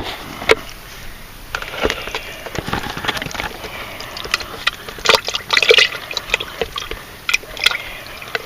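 Water splashing and pouring as live minnows are emptied from a bait trap into a bucket, with irregular sharp splashes and knocks throughout.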